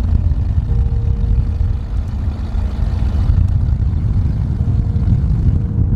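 1993 Toyota 4Runner on the move: a steady, loud low rumble of engine and road noise.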